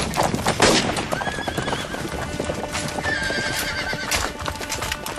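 Cavalry horses galloping over a dirt street, a dense clatter of hoofbeats, with horses whinnying twice, about a second and three seconds in, under a film score.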